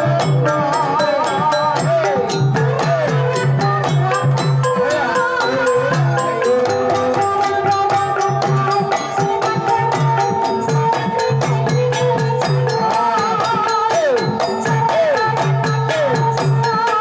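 Banyumasan gamelan ensemble playing a tayub gending. Bronze gong-chimes and metal keyed instruments are struck in a brisk, even rhythm over a kendang hand drum, and a low steady tone comes and goes in stretches of a second or two.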